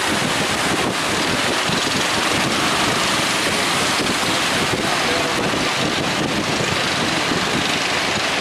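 Loud, steady wind buffeting the microphone over the continuous wash of heavy surf.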